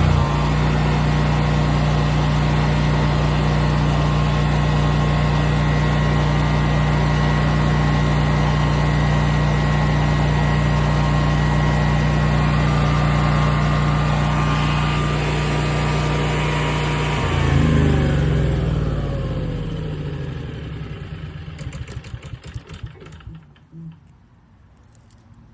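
Westinghouse 20,000-watt portable generator engine running steadily at speed. About two-thirds of the way through its pitch drops and it winds down, sputtering through a few slowing chugs before stopping.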